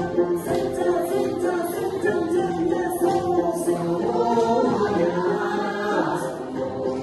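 A group of voices singing a Tibetan gorshey circle-dance song in unison, without instruments.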